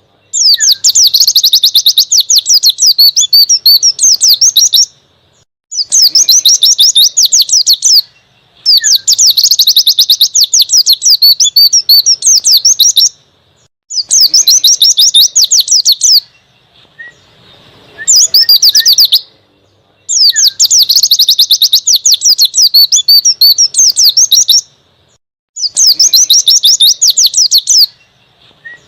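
Pleci (white-eye) singing its long 'ngalas' wild-forest song: bouts of very rapid, high twittering notes lasting several seconds each, broken by short pauses, about seven bouts in all.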